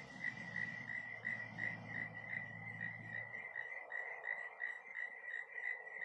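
Cricket chirping steadily at night, a high pulsed chirp repeating about three times a second. A low rumble underneath fades out about halfway through.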